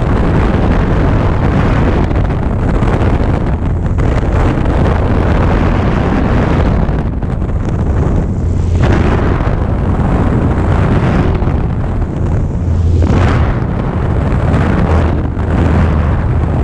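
Light high-wing airplane's propeller engine running at high power, heard under heavy wind buffeting on an exterior microphone mounted on the plane's tail.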